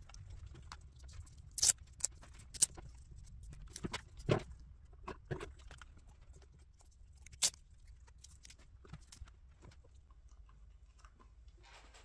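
Handling noise from Meta Quest 3 controllers being pressed into rubber knuckle-grip covers: scattered plastic clicks, taps and rubbing, the sharpest clicks about two seconds in and again past seven seconds.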